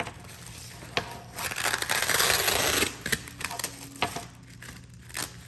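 Plastic bags and a foam wrapping sheet rustling and crinkling as bagged LED bulbs are unwrapped, loudest for about a second and a half near the middle. A few light clicks of the bagged parts being set down on a wooden table.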